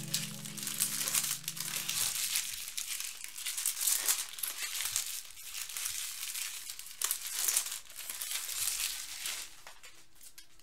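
Foil wrappers of 2011 Bowman Platinum baseball card packs crinkling and tearing as the packs are ripped open by hand, with a run of sharp crackles that stops near the end.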